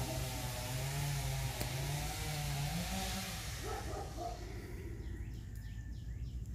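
An engine running, its pitch wavering and rising briefly about three seconds in, then dying away about four seconds in, over a steady hiss that fades near the end.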